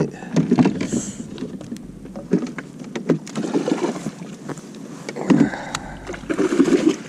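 A freshly landed bass flopping and thrashing in the boat: a run of irregular knocks, slaps and rattles.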